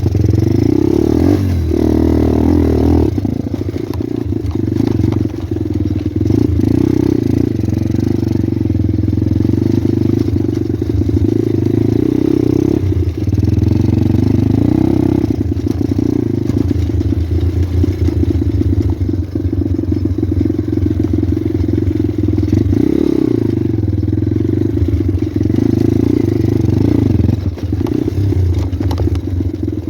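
Pit bike engine running as the bike is ridden, its pitch rising and falling with the throttle throughout. Frequent rattles and knocks sound over it.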